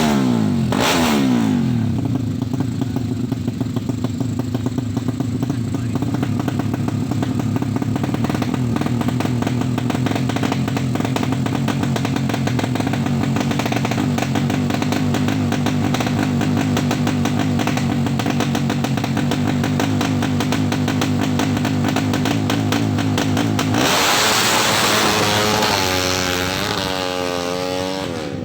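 Drag-race Suzuki Satria FU motorcycle, its single-cylinder engine bored to 200cc, running with a fast chopping pulse that sounds like a helicopter. The revs drop in the first two seconds, hold steady, then near the end swing up and down in quick blips.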